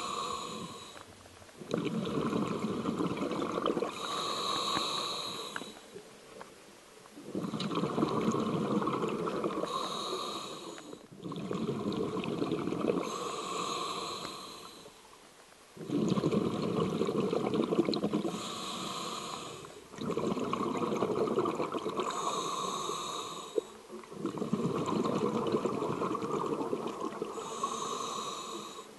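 A scuba diver breathing through a full face mask's regulator underwater: a hissing inhale, then a longer gurgling rush of exhaled bubbles, repeating about every four to five seconds.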